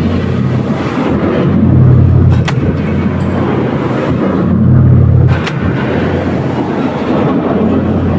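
300-ton press working through repeated strokes: a low mechanical hum that swells for about a second, then a sharp clank, twice, about three seconds apart.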